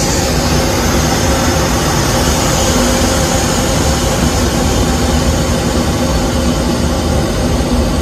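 Passenger train running at speed: a loud, steady rumble and rush of noise with a few faint steady tones in it.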